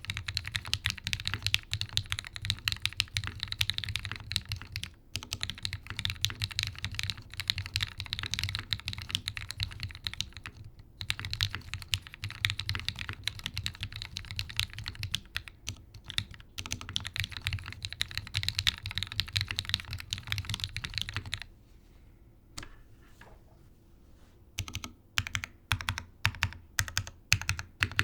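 Typing on a TGR Jane V2 mechanical keyboard with lubed Gateron Ink V1 linear switches, a carbon fiber plate and GMK keycaps: fast continuous keystrokes, a pause of about three seconds near the three-quarter mark, then slower separate keystrokes.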